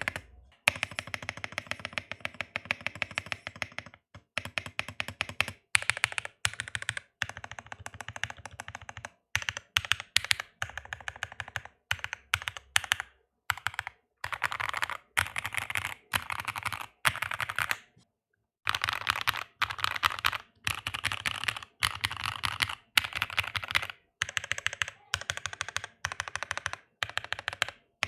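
Typing on an NK65 aluminum mechanical keyboard with factory-lubed linear switches, an FR4 plate and PBT keycaps. The keystrokes come in fast runs, broken by brief pauses.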